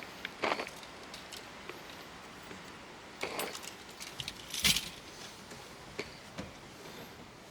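Scattered rubbing and clicking handling noises as a car mirror is wiped clean of spider webs, the loudest scrape about four and a half seconds in.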